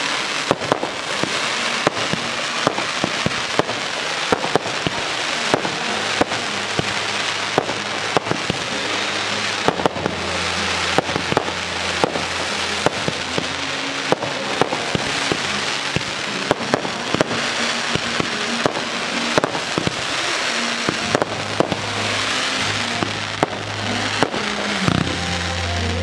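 Fireworks display firing continuously: many sharp pops and bangs over a constant crackling wash. Music with low held bass notes plays underneath.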